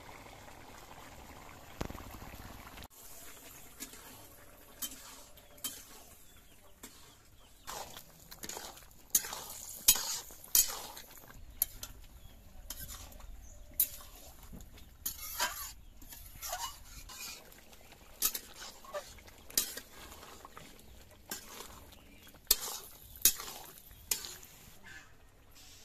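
Long metal spoon scraping and clinking against a metal wok as a boiling curry is stirred, in irregular sharp strokes with short pauses between.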